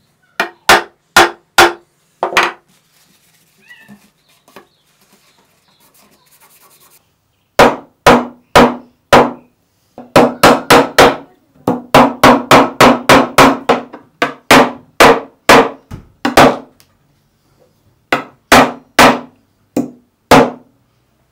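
Brass-headed fret hammer tapping fret wire down into the slots of a guitar fretboard: sharp, separate taps. A short group of about five comes first, then a pause of several seconds, then a long run of about three taps a second, and a few last taps near the end.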